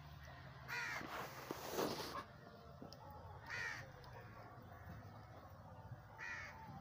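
A bird calling three times, one short call every two to three seconds, each falling in pitch. Right after the first call there is a louder burst of noise lasting about a second.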